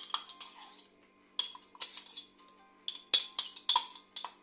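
Metal spoon scraping and clinking against the inside of a small glass yogurt jar to scoop the yogurt out: a run of sharp, ringing clinks at an uneven pace, loudest about three seconds in.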